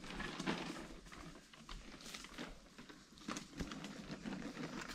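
Plastic feed bag rustling and crinkling as it is handled, with irregular crackles and taps.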